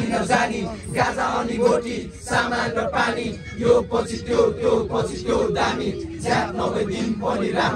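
A crowd of men's voices chanting and shouting together.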